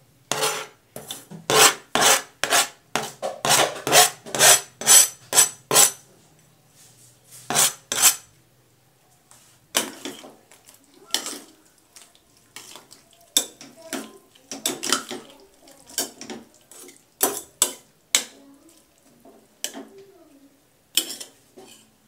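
Metal spoon knocking on a stainless steel pot, a quick run of strikes about three a second over the first six seconds, then scattered clinks and scraping as the pot's contents are stirred.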